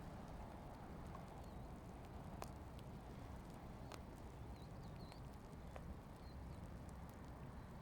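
Faint outdoor ambience after rain: a low wind rumble on the microphone, with scattered irregular drip-like taps and a few faint, short, high chirps.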